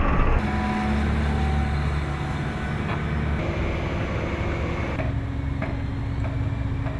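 Engine of heavy construction machinery running steadily, with a few sharp knocks; the sound changes abruptly twice, about half a second in and about five seconds in, as one clip of site sound gives way to another.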